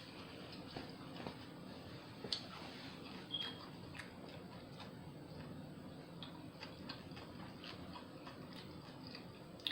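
Close-miked chewing of a veggie sub sandwich: a run of soft, irregular mouth clicks and ticks, with a couple of sharper ones.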